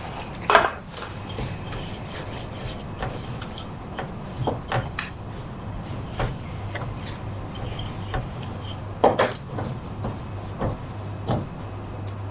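Bread dough being rolled with a wooden rolling pin and handled on a floured worktop, giving scattered soft knocks and taps over a steady low hum. The sharpest knock comes about half a second in, with more around the middle and near the end.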